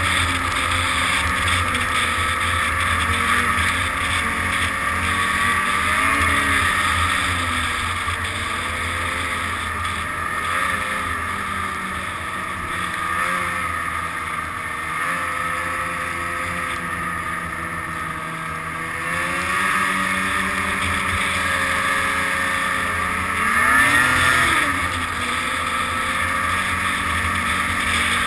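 Snowmobile engine running under way, its pitch rising and falling with the throttle, with a brief rev-up and back down about three quarters of the way through, over a steady rushing noise.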